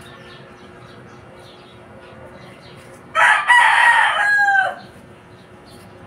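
A rooster crows once, about three seconds in: one drawn-out crow of a second and a half that drops in pitch at the end.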